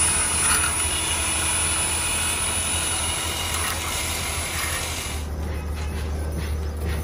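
Electric hand drill running as it bores into a steel gun receiver clamped in a vise, a steady whine with metal cutting. About five seconds in it gives way to a steadier low machine hum.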